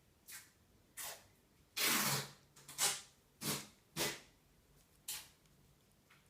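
Maine Coon cat grinding its teeth: about seven short, gritty scraping bursts at uneven intervals, the longest and loudest about two seconds in.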